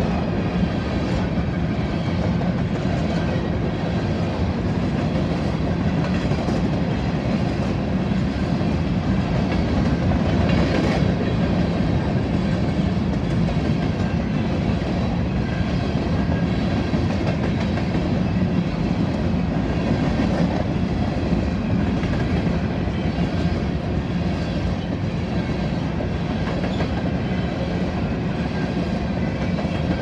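Freight train of covered grain hopper cars rolling past close by: a steady rumble of steel wheels on the rails, with repeated clicks as the wheels pass over rail joints.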